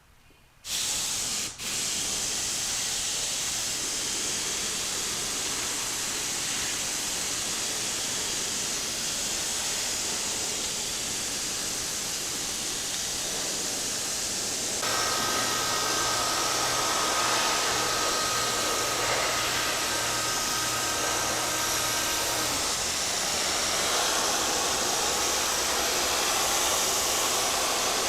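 A steady airy hiss, strongest in the high range. Midway through, a low hum with a few faint steady whistling tones joins it for about eight seconds, then drops away.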